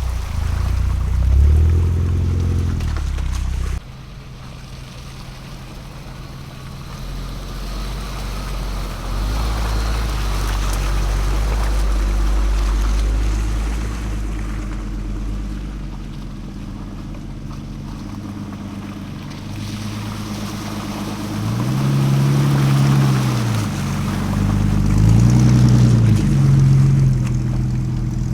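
Off-road vehicle engines running on a trail, with the engine note climbing and falling in several revs near the end. The sound changes abruptly about four seconds in.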